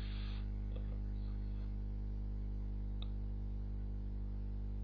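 Steady low electrical hum on the recording, with a brief hiss at the start and a few faint clicks, one just under a second in and one about three seconds in.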